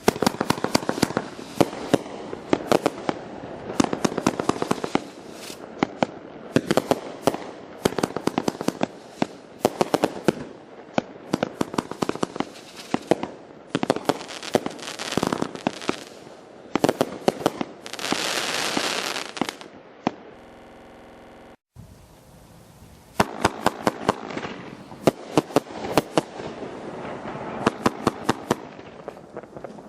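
25-shot fan cake fireworks firing volleys of sharp reports several times a second, over dense crackle. About two-thirds of the way through there is a short break of a second or so, then the volleys and crackle resume.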